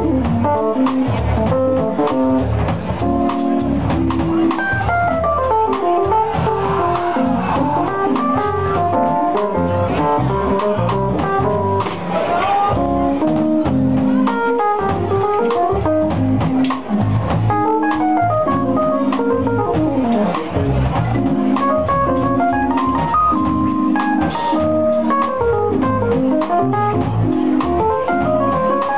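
Live jazz band playing with keyboards, electric guitars and drum kit: a fast, running melodic solo line over the rhythm section, with steady cymbal strokes.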